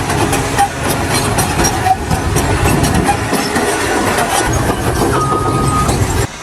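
Loud mechanical clatter and rattling with many sharp clicks, joined near the end by a short steady high tone; it cuts off suddenly.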